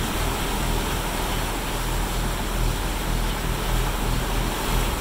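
A boat's engines running steadily at trolling speed under a constant rush of wake water.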